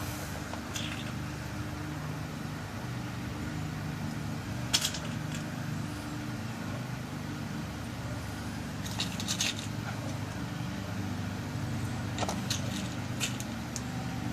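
Light, sharp metallic clicks of small lock pins being set into a lock cylinder's pin chambers while it is loaded with a new key code for rekeying: a few scattered clicks, the loudest about five seconds in, with a small cluster near the end. A steady low hum runs underneath.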